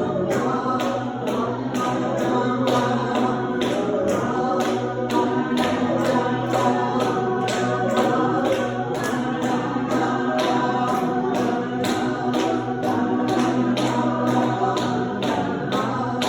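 Music: steady low drone notes held under a shifting melody, with a regular beat of about two to three strikes a second.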